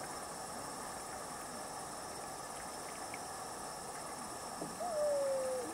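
Steady chirring of crickets with a faint hiss. Near the end an owl hoots: one drawn-out note that slides down a little in pitch.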